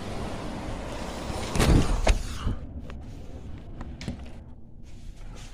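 Storm-force wind buffeting the microphone, then two loud bangs about two seconds in, after which the wind hiss drops away sharply, leaving a few faint clicks and knocks.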